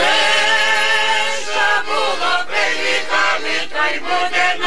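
A group of voices singing a Ukrainian Christmas carol (koliadka) with a button accordion. They hold a long chord for about the first second and a half, then move through shorter changing notes.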